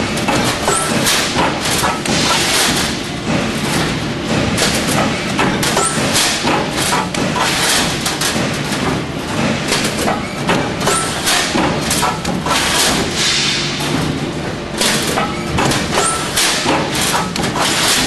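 Cable tray roll forming machine running, with a loud, dense stream of irregular knocks and clatter as the perforated steel strip feeds through it.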